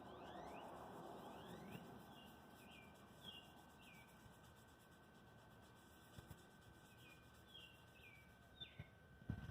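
Near silence, with faint bird chirps repeating through it: short, quick, falling notes every half second or so.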